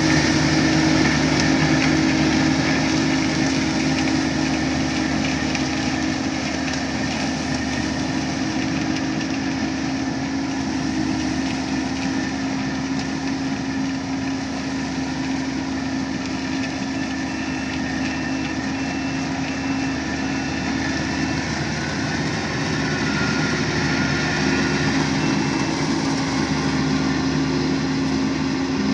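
Kubota DC-35 combine harvester running steadily, its diesel engine and harvesting machinery working together, with a slight shift in engine pitch about three-quarters of the way through.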